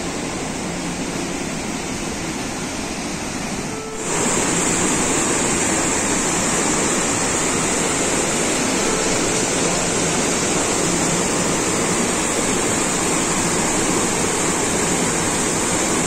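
Waterfall rushing steadily. About four seconds in the sound cuts to a louder, brighter take of the falling water.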